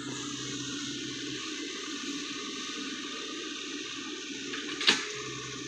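Sany SY55C mini excavator running steadily, its engine hum under a rushing noise, with one sharp knock about five seconds in.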